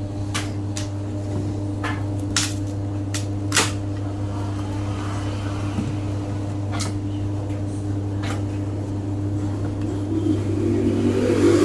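A steady low mechanical hum with a few sharp clicks and taps scattered through it; near the end a louder low rumble builds up.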